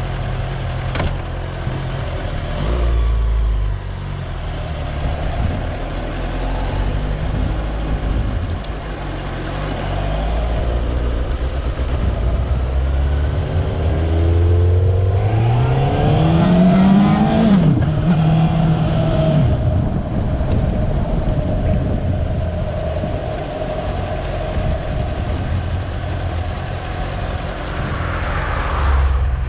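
Suzuki GSR600's inline-four engine running as the motorcycle rides off at low speed. About halfway through it revs up with a rising pitch, drops to a steadier note, and then runs more quietly as the bike slows.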